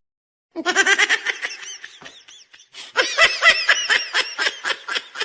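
High-pitched laughter in rapid, repeated bursts. It starts about half a second in, eases off in the middle, then picks up into a quick run of short laughs, about five a second.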